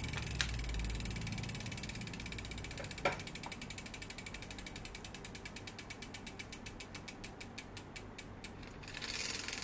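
Bicycle rear freehub pawls ticking rapidly as the rear wheel spins freely, the ticks slowing as the wheel coasts down and stopping near the end. A couple of light knocks come from the derailleur work early on.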